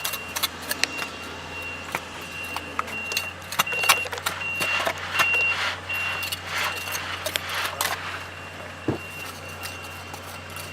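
Metal hand tools clicking and scraping in gritty soil and rock during excavation, over the steady hum of a heavy engine and the repeated beeping of a backup alarm.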